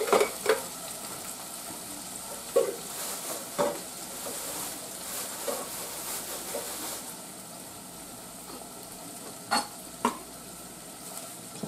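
Canned green beans sizzling in a hot saucepan in the pan juices, a steady hiss that dies down a little after about seven seconds. A few light clicks and knocks of seasoning jars being handled.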